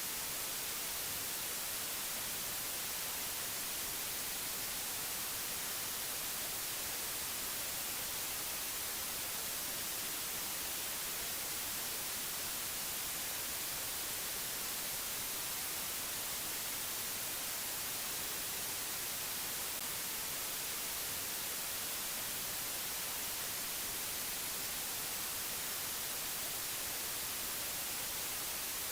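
Steady, even white-noise hiss, brightest in the treble, with no change in level or character.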